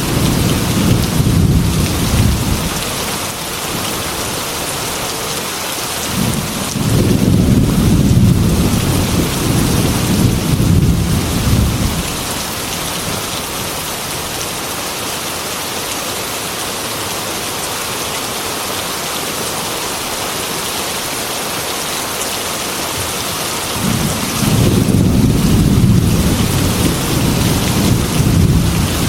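Heavy rain beating steadily on a glass window, with long low thunder rumbles three times: at the start, again from about seven seconds in for about five seconds, and again near the end.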